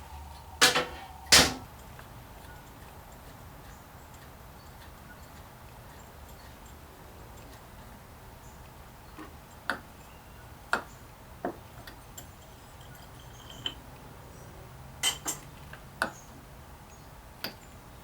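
Scattered clicks and knocks of hand tools working on a chainsaw: two louder knocks about a second in, then sparse lighter clinks over a low steady background.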